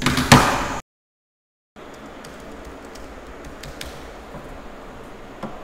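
A short loud burst of noise right at the start that cuts off abruptly, followed after a gap of silence by quiet room tone with a few faint, irregular clicks and a small knock near the end.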